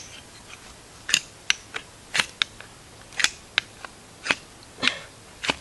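Ferro rod (fire steel) struck again and again with a metal striker: a quick, uneven run of about a dozen short, sharp scrapes, each throwing sparks at cotton-pad tinder to start a campfire.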